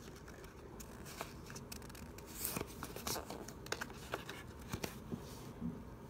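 Pokémon trading cards being handled, sliding and rubbing against each other with scattered soft clicks and brief rustles as cards are moved from the back of the pack's stack to the front.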